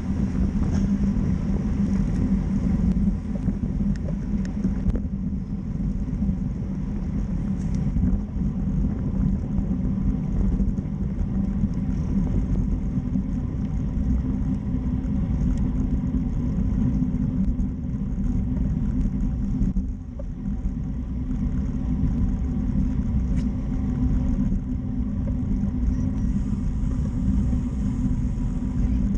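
Steady low rumble of wind buffeting a bike-mounted action camera's microphone, with tyre and road noise, as a road bike rides at about 20 to 25 mph in a race bunch.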